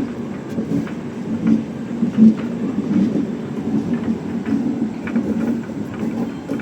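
Rajdhani Express passenger train rolling slowly out of the station: a steady low rumble and hum, with scattered light clicks from the wheels.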